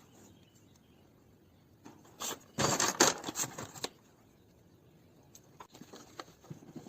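Clattering and clicking of small hard objects being handled, with a dense burst lasting about a second starting roughly two and a half seconds in, then scattered lighter clicks near the end. No engine is running.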